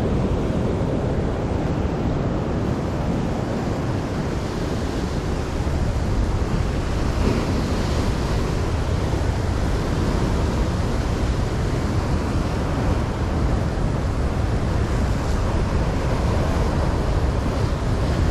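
Heavy surf breaking and churning against shoreline rocks in rough sea, a continuous wash of crashing water.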